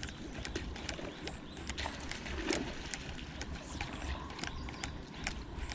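Scattered light clicks and taps at irregular intervals over a low rumble of wind on the microphone, with a few short, faint high peeps.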